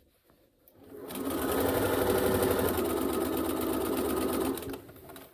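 Bernina sewing machine stitching a seam through cotton fabric. It starts up about a second in, runs steadily at a fast stitch rhythm, and winds down to a stop near the end.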